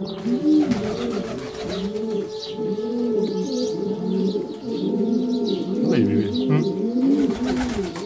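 A crowd of white domestic pigeons cooing, many birds at once in overlapping repeated low coos, with faint higher chirps over them.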